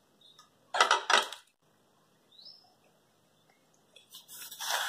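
Kitchenware clatter: a short crackly clink about a second in, then a brief rustle building near the end, with a faint high chirp in between.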